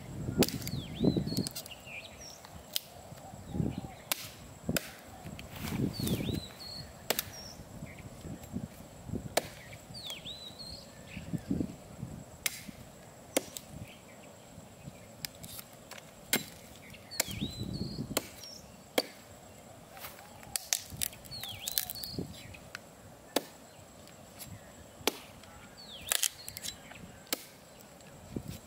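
Hatchet chopping into a short log on a wooden chopping stump, a sharp chop about once a second.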